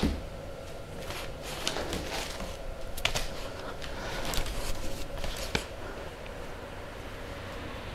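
Two puppies play-wrestling on a person's legs: scuffling and rustling against clothing, with a few scattered sharp clicks.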